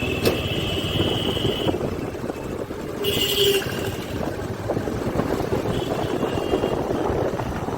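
Motorcycle riding along a city road in traffic: steady engine and road noise, with a horn sounding for about a second and a half at the start and again briefly about three seconds in.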